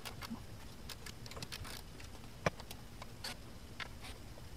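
Irregular clicks and taps of a ratchet and socket extension working bolts under a car, with one sharper knock about two and a half seconds in.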